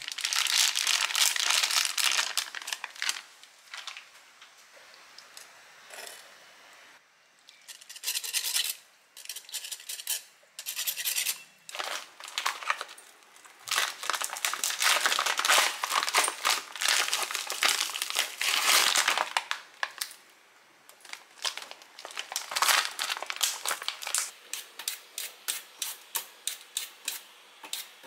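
Plastic food package crinkling and tearing as it is handled and pulled open, in several bursts. Near the end, a regular run of short strokes at about three a second.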